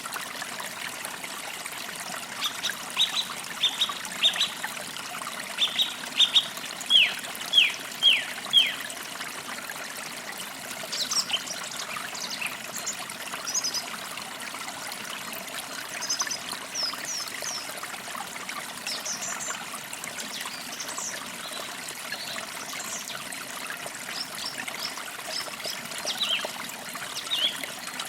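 Forest creek trickling and flowing steadily, with birds chirping over it. A few seconds in comes a run of about a dozen short, falling notes, the loudest sound here, followed by scattered higher chirps.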